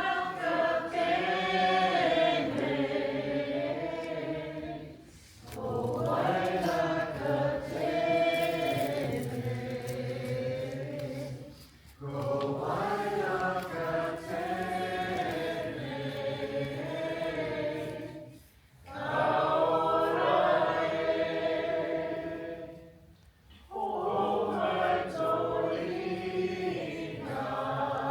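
A group of voices singing a Māori waiata unaccompanied, in about five long phrases, each ending in a short pause for breath.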